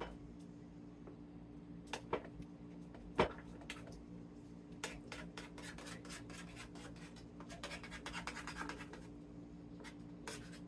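Scratchy rubbing and light taps of phyllo dough being pressed down and the egg mixture spread over it, with a quicker run of scraping about two-thirds of the way through.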